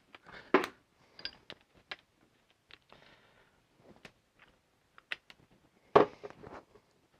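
Scattered light clicks and knocks of tools being handled, with two louder knocks about half a second in and about six seconds in.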